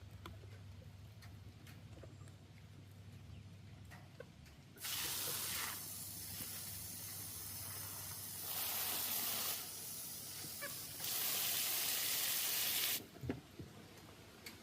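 Water spraying out under pressure in a rushing hiss. It starts suddenly about five seconds in, surges louder twice, and cuts off sharply near the end.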